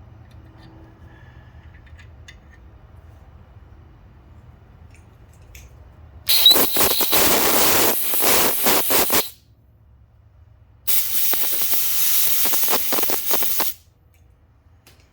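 Two loud hissing blasts of pressurised air, each about three seconds long and about a second and a half apart. Before them there is only a faint low hum with a few light clicks.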